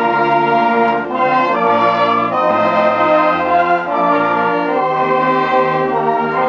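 Village brass band playing a piece in full, held chords that change every half second to a second.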